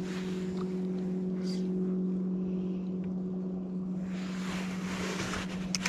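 Bass boat's electric trolling motor running with a steady low hum, wind blowing on the microphone and getting stronger about four seconds in. A short click near the end.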